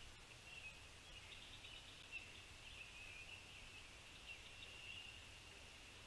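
Faint outdoor ambience: distant songbirds chirping and twittering in a thin high band, over a low hum.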